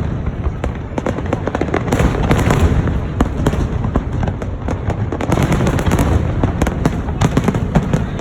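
Aerial fireworks display going off in a continuous barrage: many rapid sharp bangs and crackles over a steady low rumble, with no break.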